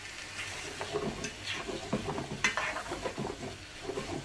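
A spoon stirring boiled potato cubes into a thick spiced tomato sauce in a non-stick frying pan, with irregular scrapes and knocks against the pan over a faint sizzle. The strokes start about half a second in and stop at the very end.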